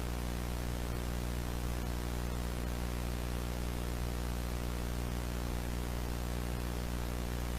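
Steady electrical hum with many evenly spaced overtones, under a constant static hiss; it does not change.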